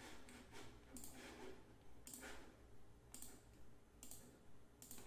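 Faint clicks of a computer mouse, roughly one a second.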